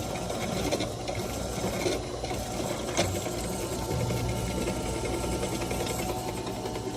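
Harbor Freight benchtop drill press running steadily at its slowest speed, 750 RPM, spinning a taper-edge crimp finisher for shotshells. A single sharp click comes about three seconds in.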